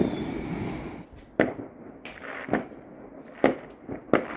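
Fireworks going off: a run of about six sharp bangs and cracks at irregular spacing, starting about a second in. Before them there is a steady rushing noise with a faint falling whistle.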